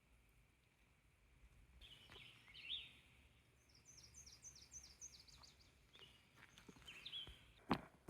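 Faint outdoor birdsong: scattered chirps, then a bird singing a quick run of short, high, falling notes, about five a second. A single sharp thump near the end.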